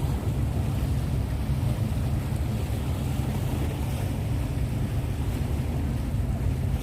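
Wind buffeting a phone microphone in heavy rain: a steady, gusting low rumble with a fainter hiss of rain over it.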